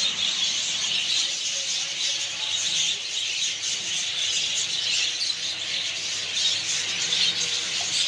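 A dense, continuous chatter of many caged birds chirping and squeaking together.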